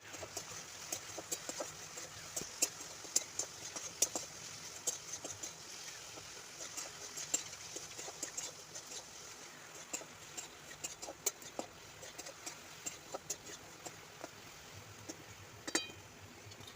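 A pan of ash gourd chutney cooking: a steady sizzle with many irregular clicks and pops.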